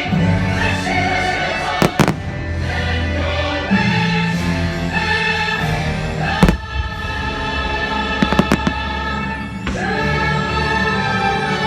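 Fireworks bursting over the show's music, which has long held notes and choir-like voices. Single cracks come about two seconds in and a little past the middle, then a quick run of several pops near the end.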